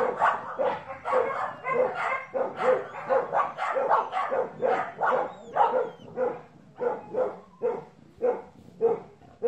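A dog barking over and over in a steady run of short barks, about two a second.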